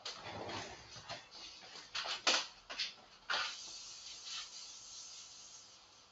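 A person getting up from a chair and moving about at a wall chalkboard: rustling and shuffling in the first second, then a few sharp taps and scrapes against the board around the middle.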